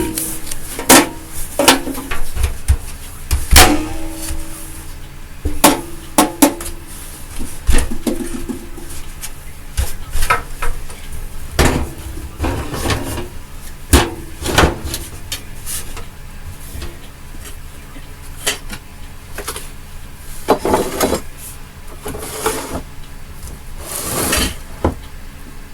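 Irregular knocks, clicks and clatter of hard objects being handled and set down, as in rummaging, thickest in the first half.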